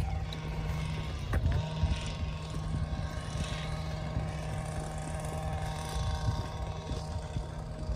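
A distant engine drones steadily at a constant pitch, over a low, irregular rumble of wind on the microphone.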